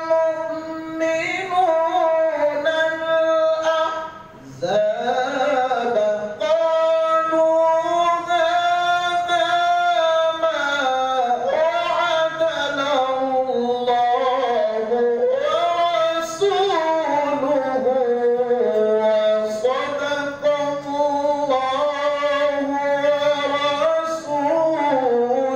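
A man reciting the Quran in the melodic tilawah style into a microphone: one voice holding long, ornamented notes that slide up and down in pitch, with a short break for breath about four seconds in.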